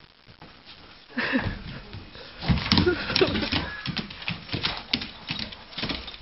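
A dog's claws clicking irregularly on a hardwood floor as she moves about, starting about a second in, with rustling of her body against the person.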